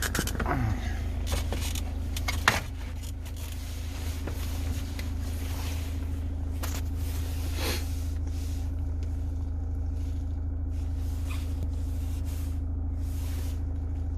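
Steady low hum of a running car heard from inside the cabin, with a few sharp clicks and knocks in the first three seconds.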